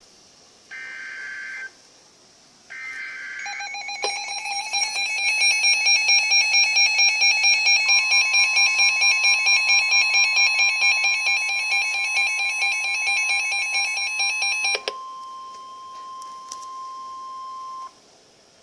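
Emergency Alert System warning tones: two short bursts of buzzing digital header data, then a loud alarm tone pulsing about three times a second. A steady single tone joins about eight seconds in, the pulsing stops near fifteen seconds, and the steady tone carries on alone until cutting off near the end.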